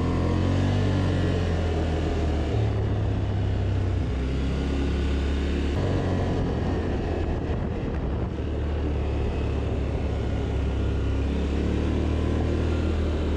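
Quad bike (ATV) engine running while being ridden, a steady low drone whose pitch steps about three and about six seconds in, with a rushing noise over it.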